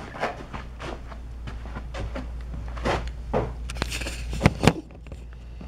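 Handling noise from a camera being carried and set down on the floor: scattered rustles and light knocks, then two sharp knocks close together about four and a half seconds in.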